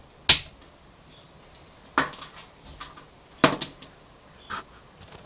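Multimeter test probes and a plastic XT90 connector handled and set down on a cutting mat: three sharp clicks about a second and a half apart, then a fainter one.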